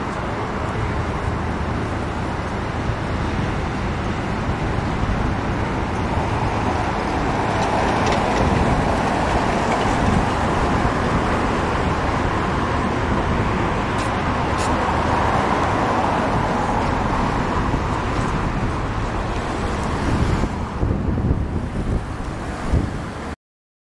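Engine of a high-reach demolition excavator running steadily, with a few faint knocks partway through; the sound grows rougher near the end and then cuts off suddenly.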